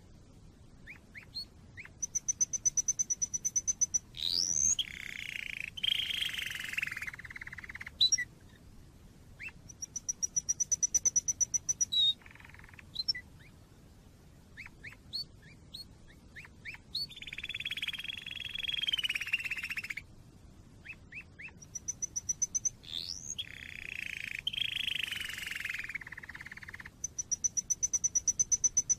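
Canary song: fast trills of rapidly repeated high notes alternate with quick rising whistles and lower warbled phrases. The same phrases recur several times.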